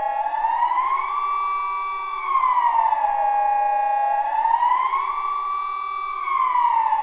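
Siren sounding in a slow wail: the pitch climbs, holds high for about a second, falls, and holds low, repeating about every four seconds.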